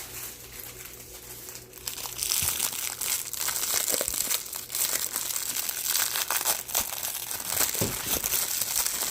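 Plastic zip-top bag crinkling as it is handled, quietly at first, then loud, irregular crackling from about two seconds in.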